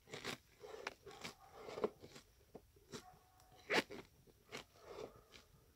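Salted shredded cabbage crunching as it is pressed down by hand into a container, a run of irregular crunches with the sharpest a little under four seconds in. The cabbage is being packed down so the salt draws out its water for winter pickling.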